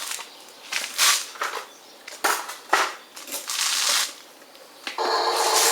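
Loose soil crunching and scraping in several short bursts as it is scooped and tipped, with no engine rumble underneath. About five seconds in, a steady buzzing hum with several fixed tones starts.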